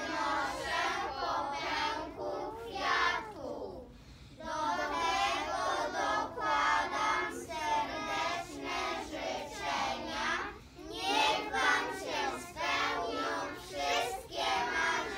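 A group of young children singing together, with a short break between phrases about four seconds in.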